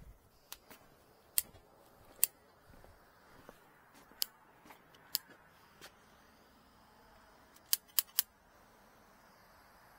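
Sharp clicks from a small hand tool worked in the hand, about eight in all at uneven gaps, with three quick ones in a row near the end.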